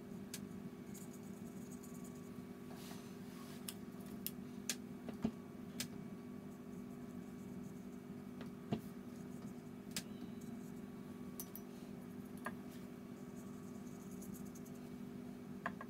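A fine watercolour brush working on an old postcard: faint scratchy strokes and scattered light ticks of the brush against the card, over a steady low hum.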